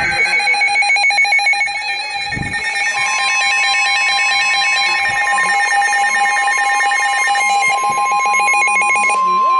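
NOAA weather radios sounding a tornado warning alert: rapid pulsing electronic beeps from the radios, joined about three seconds in by the broadcast's steady 1050 Hz warning alarm tone, which holds to the end.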